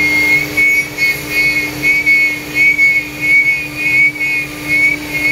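CNC router spindle cutting a rough pass in an HDU foam sign board: a steady hum under a high whine that swells and fades about three times a second as the bit works through the foam.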